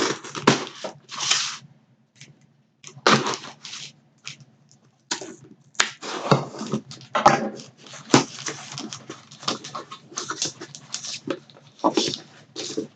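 A cardboard mystery box being opened by hand: tearing, flap handling and packing being rustled, in irregular bursts over a low steady hum.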